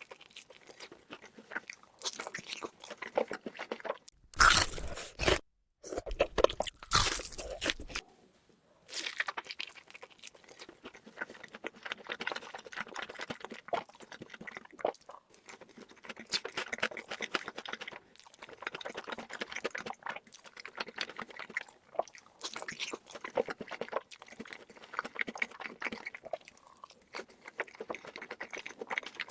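Close-miked chewing and crunching of food, with many quick irregular crunches and bites. The crunches are loudest a few seconds in, with a brief gap in the middle of that loud stretch.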